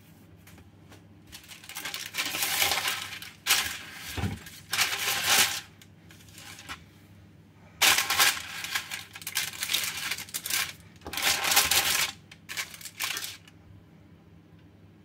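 Baking parchment rustling and crinkling in several bursts as a sheet is handled and laid out on a stone worktop.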